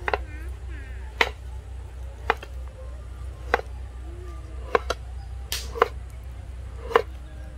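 Large kitchen knife chopping slices of peeled cassava (tapioca) root on a wooden cutting board, sharp chops about once a second, two in quick succession partway through.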